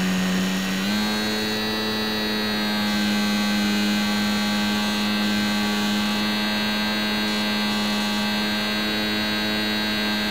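Electric motor and propeller of a HobbyZone Champ RC plane whining steadily in flight, heard up close from a camera mounted on the plane. The pitch steps up slightly about a second in and then holds.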